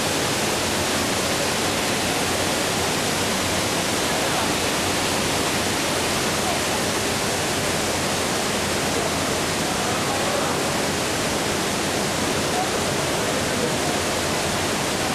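Indoor waterfall feature: water pouring in a wide sheet from an overhead trough and splashing into a pool below, a steady, even rush.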